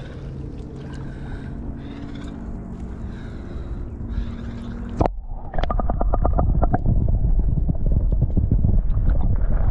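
Shallow water stirred as a large flathead is lowered into it by hand, with a steady low wash of water and wind. About five seconds in, the GoPro plunges under the surface with a sudden splash, followed by a quick run of bubbling clicks and then a loud, muffled underwater rumble.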